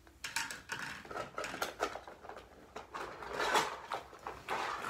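Plastic toy cookware clattering on a toy kitchen stove: a run of small irregular knocks and taps as a toy pan and play food are handled.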